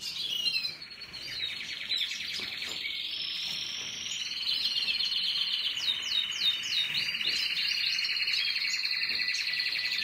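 Canary singing a long, unbroken song of fast rolled trills, with a run of quick rising chirps in the middle.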